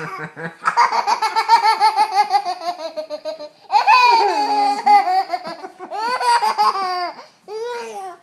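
Two-year-old boy laughing hard: several long bouts of high-pitched, rapidly pulsed laughter, with short breaks for breath between them.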